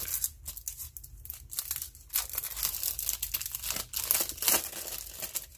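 Clear plastic wrap on a spiral notebook crinkling and tearing as fingers pick it open: a run of irregular crackles and small rips.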